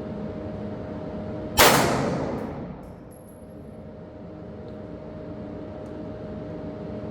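A single shot from a Foxtrot Mike FM9 9mm AR-style pistol about a second and a half in, with a long echo that dies away over about a second.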